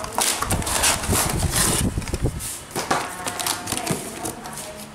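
Cardboard box flaps and plastic wrapping handled by hand: irregular rustling, crinkling and scraping, busiest in the first two seconds.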